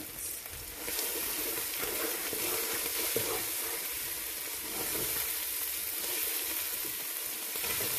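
Onion and tomato masala with spices sizzling in hot oil in a nonstick pan while a spatula stirs it. The sizzle gets louder about a second in as the mixture is turned over.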